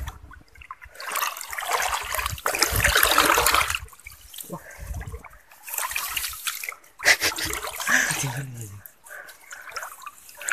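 Shallow water splashing and sloshing as a fishing net is drawn through it by hand, with one long spell in the first few seconds and a shorter one about seven seconds in.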